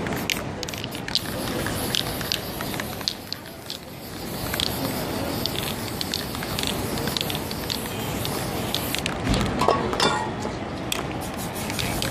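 Aerosol spray-paint can hissing as paint is sprayed onto poster board, over a steady background hiss with scattered sharp clicks. A brief louder thump comes about nine and a half seconds in.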